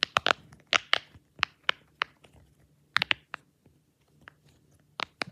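Bear-shaped silicone pop-it fidget toy having its bubbles pressed through from the loud side, giving about a dozen sharp pops in irregular clusters, some in quick pairs, with a pause of over a second near the end.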